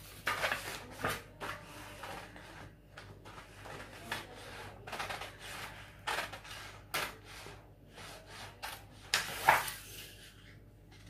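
Large tailoring scissors cutting through a paper blouse pattern, with the sheet rustling as it is shifted and turned between cuts. The sound comes in irregular short snips and crinkles, the loudest one near the end.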